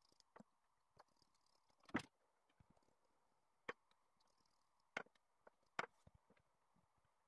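Hands patting and pressing a stack of thin baklava dough rounds on a wooden table: a handful of short, sharp taps over near silence, the loudest about two seconds in.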